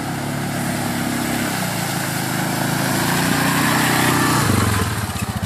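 CF Moto 625 quad's single-cylinder engine running under steady throttle, getting louder as it comes close, with the tyres churning through mud and water. Near the end the throttle is let off and the engine drops back toward a slow, pulsing idle.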